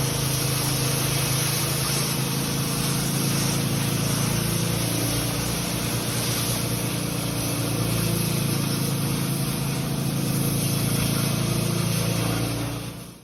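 Steady machine hum with an even hiss over it, fading out just before the end.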